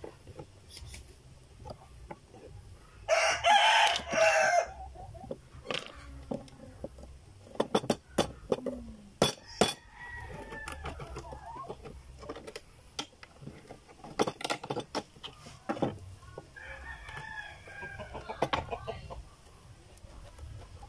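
A rooster crows loudly about three seconds in, with fainter chicken calls later on. In between come sharp clicks and taps of a kitchen knife prying open oysters on a wooden table.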